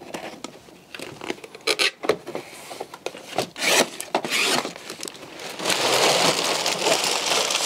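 Cardboard LEGO set box being opened by hand: scattered clicks, scrapes and tearing of the box flaps and seals, then a denser stretch of rustling and rattling near the end as the plastic bags of bricks inside are handled.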